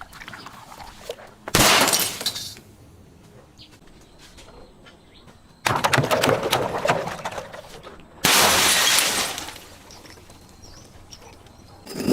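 Glass breaking three times, each crash starting suddenly and trailing off in a second or two of crackling, tinkling fragments.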